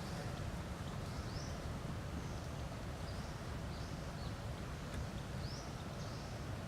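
Forest ambience: a steady low rumble, with short, faint high chirps scattered through it every second or so.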